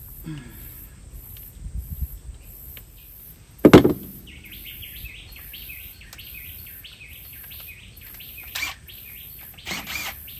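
Birds chirping in a quick repeated phrase over a high, pulsing insect buzz, with a single loud knock about four seconds in and a couple of lighter knocks near the end.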